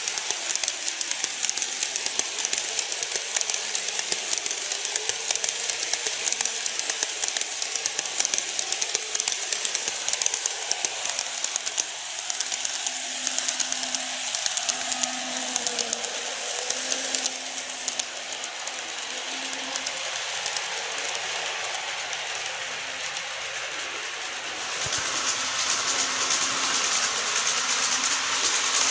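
Model trains running on the track: a continuous fine clicking rattle of small metal wheels over the rails and joints as a line of tank wagons rolls past. From about twelve seconds in a steady low hum joins it as a model electric multiple unit passes, and the rattle picks up again near the end.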